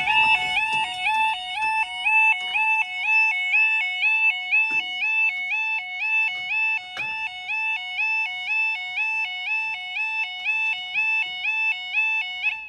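Level crossing audible warning alarm sounding its rapid two-tone warble, stepping back and forth between two pitches. It cuts off suddenly near the end, as the crossing finishes closing for a train.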